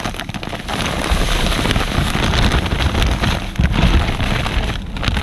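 Plastic bag of panko breadcrumbs crinkling and rustling as the dry crumbs are shaken and poured out into a plastic tub: a dense, steady crackle with a low rumble under it.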